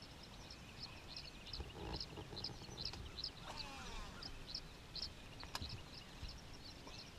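Quiet chorus of birds chirping and singing, many short high chirps repeating throughout, with a brief sharp click about five and a half seconds in.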